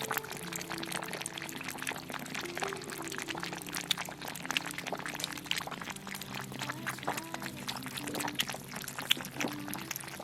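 Kittens eating meat, a dense run of quick wet smacking and chewing clicks, over background music with long held notes.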